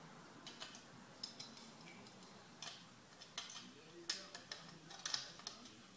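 Faint, irregular light metallic clicks and clinks from Cleco temporary fasteners and their pliers being handled in sheet metal.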